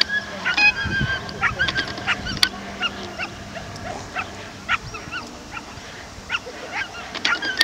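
Dogs barking and yelping in many short, separate calls.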